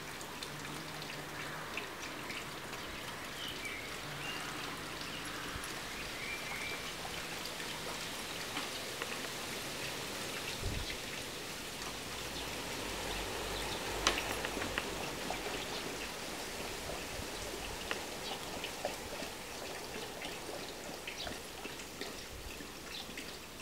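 Steady outdoor hiss of water or light rain, with many faint scattered patters and one sharper click about two thirds of the way through.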